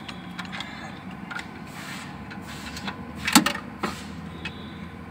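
Scattered metallic clicks and knocks from handling engine parts, with one loud metal clank a little past three seconds in and a smaller one about half a second later, over a steady low hum.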